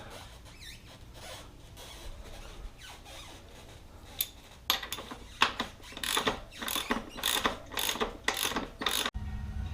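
Ratchet wrench clicking as the rear wheel's fasteners are snugged up: a few faint clicks, then, about halfway through, a run of sharp ratchet strokes about two a second that stops suddenly near the end.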